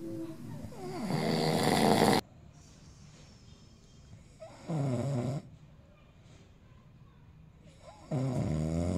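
A man snoring loudly, three times. First comes a long, rough snore that builds for a couple of seconds and cuts off sharply, then two shorter, pitched snores about three seconds apart.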